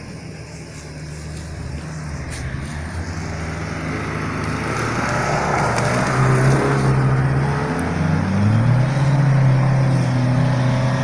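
Off-road 4x4 engine under load, growing louder as the vehicle comes closer, and revving higher about eight seconds in.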